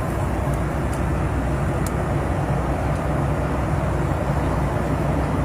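Steady low rumble of a running vehicle, engine and road noise with no change in pitch.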